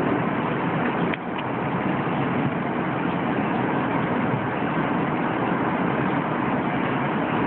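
Steady vehicle noise, with a faint click about a second in.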